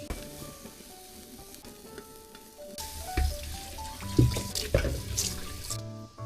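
Food sizzling in a pan, starting about three seconds in and cutting off near the end, with a few sharp clinks of stirring, over soft background music.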